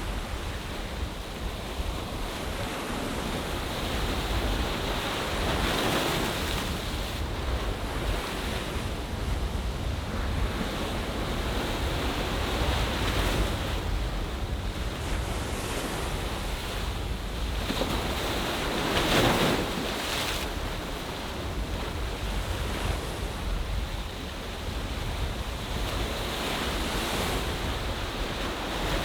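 Sea waves washing onto the shore of an ocean bay, swelling and easing roughly every six to seven seconds, with the loudest wave about two-thirds of the way through. A steady low rumble of wind on the microphone lies underneath.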